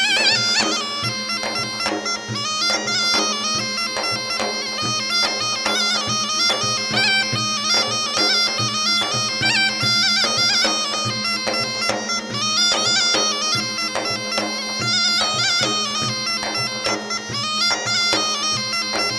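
Instrumental music: a wind-instrument melody with quick, wavering ornaments over a steady drone, with a regular drum beat.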